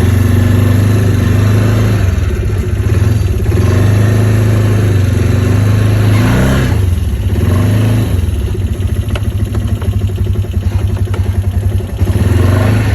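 ATV engine running under way, its pitch dipping and rising about halfway through as the throttle changes.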